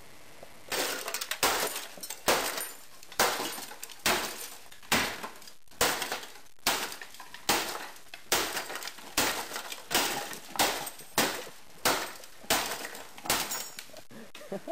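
A fax machine's plastic housing being smashed with repeated blows, about one a second and starting just under a second in, each blow cracking and rattling the broken casing and loose parts.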